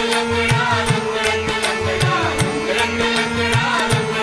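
Devotional Marathi bhajan: a melody sung over a steady held drone, with a regular drum beat and sharp metallic clicks keeping time.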